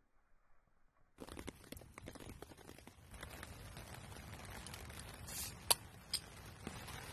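Faint outdoor hiss with scattered small clicks and rustles of handling, starting about a second in. Near the end a knife blade is levered against a glass bottle's cap, giving two sharp clicks.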